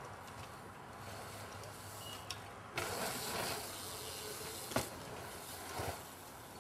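BMX bike on dirt trail jumps: a rush of tyres on dirt from about three seconds in, then a sharp knock about a second later as the bike lands, over a steady faint hiss.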